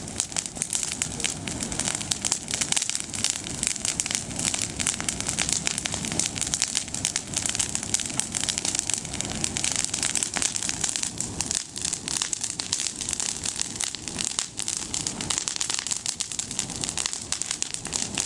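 Bonfire of freshly pruned green olive branches, the leafy twigs burning with a dense, continuous crackling and popping.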